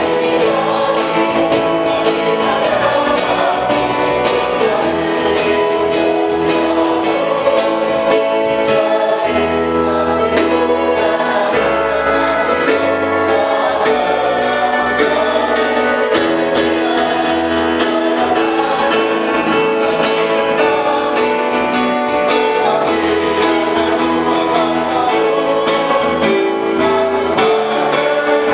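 Live congregational worship song: singers at microphones lead a standing congregation singing together, backed by bass guitar, cajon and keyboard with a steady beat.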